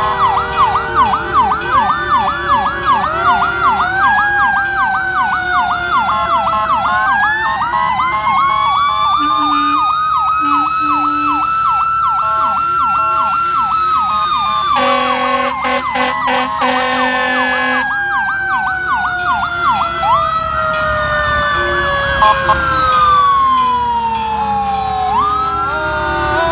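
Several fire engine sirens sounding together, some in a fast yelp and others in a slow wail that rises and falls. Roughly halfway through, a loud horn blasts for about three seconds, briefly broken.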